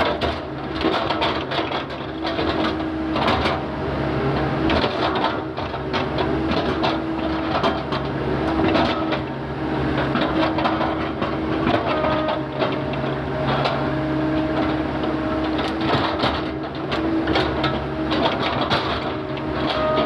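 Excavator's diesel engine running steadily, with frequent knocks and clatter throughout.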